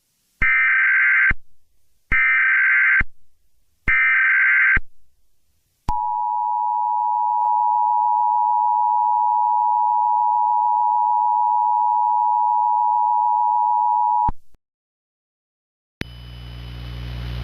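Emergency Alert System tones: three short bursts of SAME digital header data, each just under a second long, then the steady two-tone EAS attention signal held for about eight seconds before it cuts off.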